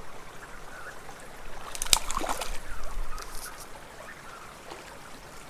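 Small mountain creek trickling steadily, with a sharp splash and a short spell of splashing about two seconds in, as a hooked trout fights at the surface.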